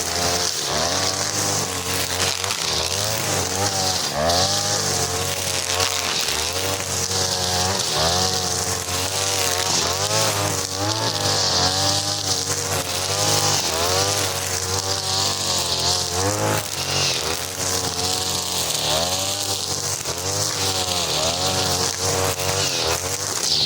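A 43cc two-stroke brush cutter running at high revs with a four-strand 2.5 mm nylon line head. The engine's pitch keeps dipping and rising again every second or two as the spinning line takes load and frees up, over a constant high hiss.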